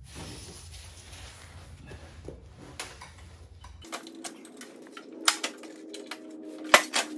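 Scattered metallic clicks and clanks of a lawn tractor mower deck's hanger pins, clips and linkage being handled as the deck is unhooked, with one sharp metal clank near the end.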